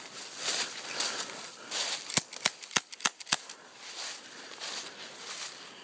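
Airsoft gun firing about five sharp snapping shots in quick succession, a little over two seconds in, with leaves rustling underfoot.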